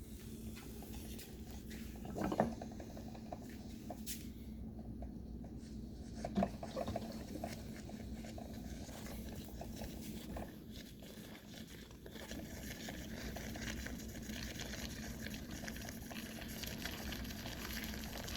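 Hamilton Beach FlexBrew coffee maker brewing a pot: water gurgling and hissing as the heater pushes it up to the brew head, with a couple of sharp pops early on and the bubbling growing louder in the second half.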